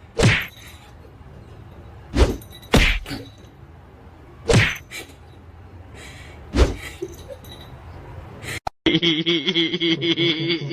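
Five sharp knocks or thumps, irregularly spaced a second or two apart, over a faint low hum. Near the end a steady pitched sound starts abruptly.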